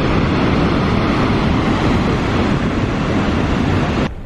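Steady, loud rush of water from Niagara's Horseshoe Falls plunging into the gorge. It cuts off suddenly about four seconds in.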